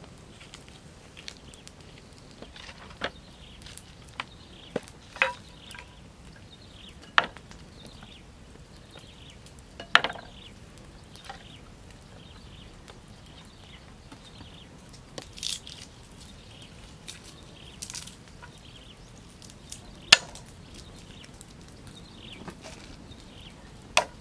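Scattered knocks and clatter of bottles, a bowl and a cleaver being handled and set down on a wooden pallet, a few seconds apart, then near the end a sharp chop of a cleaver cutting garlic on a wooden board.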